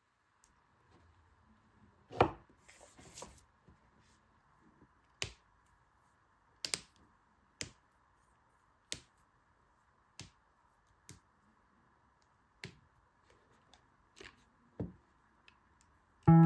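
A dozen or so sharp taps and clicks at irregular intervals, like small objects being set down and handled, the loudest a knock about two seconds in, followed by a brief rustle. Guitar music starts right at the end.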